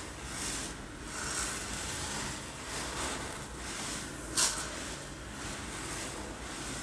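Uncooked rice grains rolling and sliding in a container, a hiss that swells and fades in washes like waves on a beach. There is one sharp click about four and a half seconds in.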